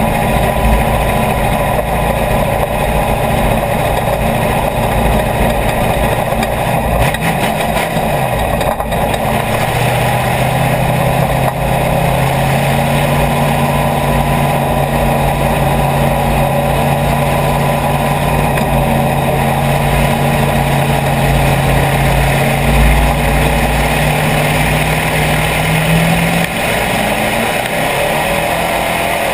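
IMCA Hobby Stock race car's V8 engine heard from inside the open cockpit, a loud low rumble with road and chassis noise. It holds steady revs through the middle and changes pitch near the end.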